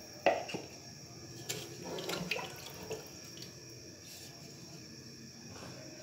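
Wooden spoon stirring water and green peas in a metal pot: quiet sloshing and swirling, with a few light knocks of the spoon against the pot in the first three seconds.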